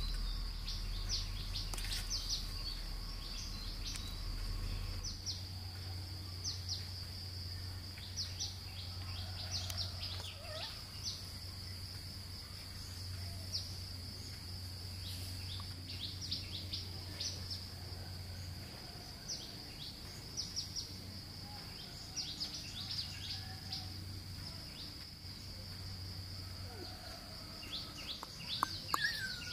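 Steady high-pitched insect drone with frequent short bird chirps over it.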